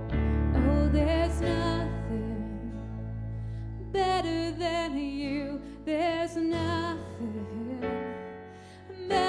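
A slow song: a voice sings a melody with vibrato over held keyboard chords, with the voice coming in just after the start and again about four seconds in.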